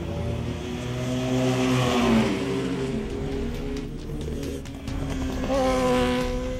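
Racing sportbike engine at high revs going by on the track, its pitch climbing and then dropping as it passes. Music comes in near the end.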